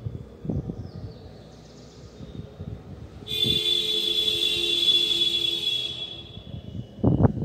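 A loud, high-pitched buzzing tone lasting about three seconds, starting about three seconds in, followed by a couple of low thumps near the end.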